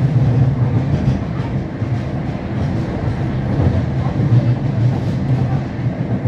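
A London Underground 1996 stock train running, heard from inside the carriage: a steady, loud rumble of motor and wheels on rail.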